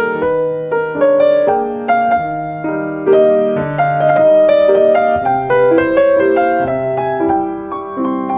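Piano music: a melody of single notes over chords, each note struck and left to ring away.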